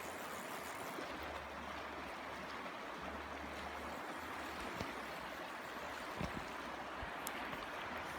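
River water flowing steadily, a continuous rushing hiss, with a low rumble coming and going and a few faint knocks.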